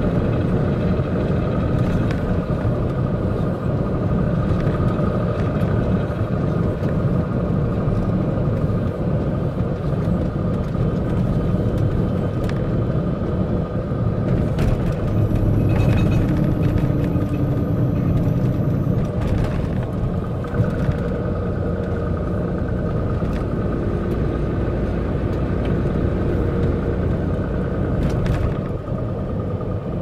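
Steady running noise of a MAN concrete mixer truck heard inside the cab: diesel engine and tyre rumble at cruising speed, with a few faint clicks.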